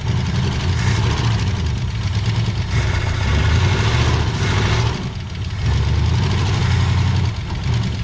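1965 Ford Falcon's 289 V8 running and pushed harder in a few surges, straining against a stuck front wheel, with dips as it is eased off between surges.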